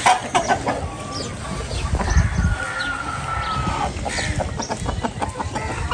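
A flock of chickens clucking, with one drawn-out, slightly falling call lasting over a second about two and a half seconds in.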